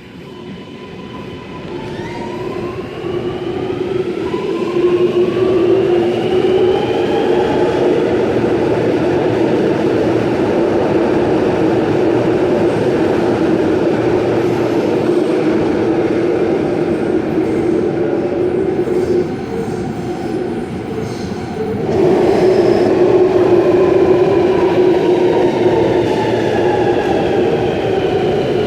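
Sydney Metro train running through the station, its traction motors whining upward in pitch as it accelerates over the first several seconds, then running steadily, and with a falling whine near the end as a train slows.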